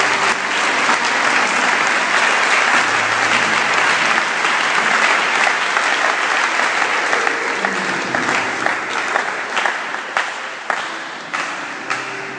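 Crowd applauding, dense clapping at first that thins out to scattered single claps over the last few seconds as it dies down.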